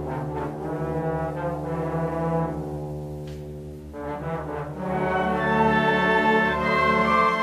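Brass-led music playing sustained held chords. It eases down and quietens a little before the middle, then swells louder again.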